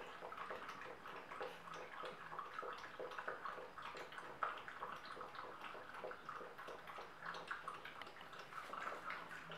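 Two puppies pawing and nosing at the base of an appliance on a tiled floor. The sound is a faint, continuous run of small irregular clicks and scrapes.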